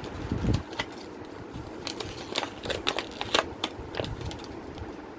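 Irregular sharp clicks and taps of computer hardware being handled and connected, with a low thud about half a second in and the clicks coming thickest in the second half.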